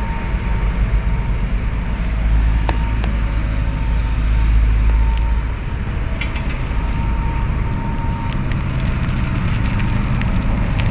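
Engine noise from road traffic and construction machinery: a steady low rumble that drops away about five and a half seconds in, with a few sharp clicks and crackles.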